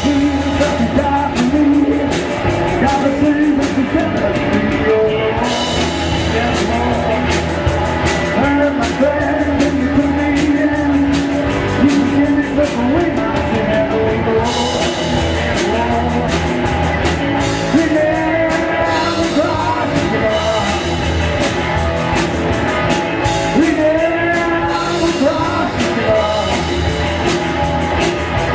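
Rock song playing continuously, with a voice singing over guitar and drums.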